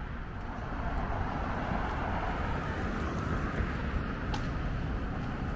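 Downtown road traffic passing: steady tyre and engine noise over a low rumble.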